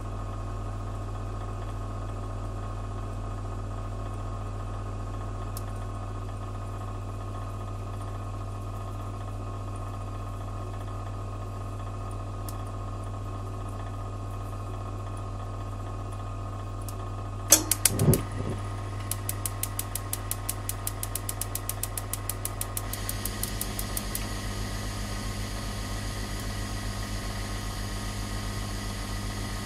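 Gas heater being lit. Over a steady low hum come a few loud clicks of the control about 17 seconds in. Then the igniter ticks rapidly, about five ticks a second for some five seconds, as the gas catches into a steady hiss of burning flame.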